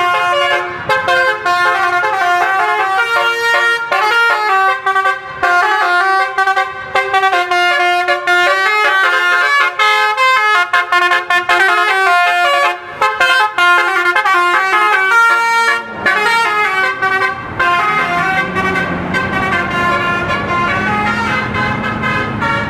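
Bus telolet horn, a set of air-horn trumpets tuned to different notes, sounding a long run of quick stepped melodic toots. In the last few seconds the notes thin out and a lower steady drone comes in underneath.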